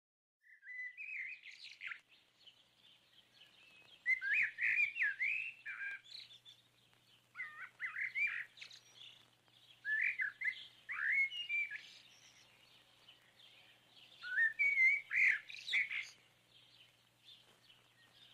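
Songbird singing in about five short bursts of quick rising and falling chirps, each a second or two long, with pauses between them.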